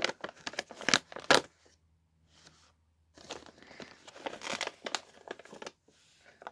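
Plastic sweet packet crinkling and crackling as it is handled and torn open, in two bouts with a short pause between.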